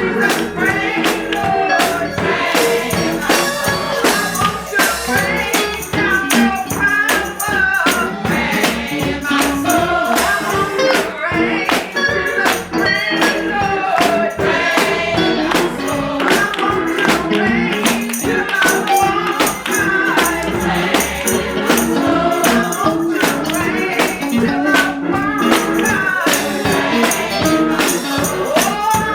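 Live gospel song with singing and a tambourine struck in a steady, driving rhythm.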